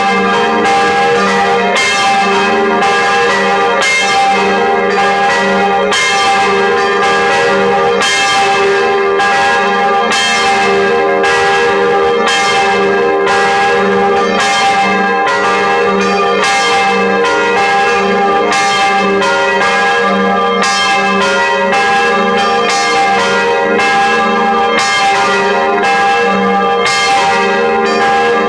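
Church bells pealing together, swinging and striking in an overlapping pattern, each stroke ringing on into the next, with no let-up.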